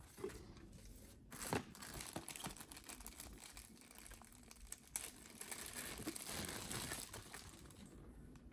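Clear plastic zip-lock packaging bags crinkling and rustling as they are handled and opened, with a couple of sharper snaps of the plastic.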